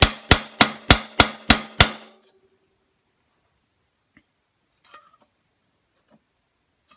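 Hammer striking a pin punch about three times a second, each blow ringing, driving the rear sight block pin out of a Vepr 12 shotgun's sight block and dust cover. The hammering stops about two seconds in, followed by a few faint clicks.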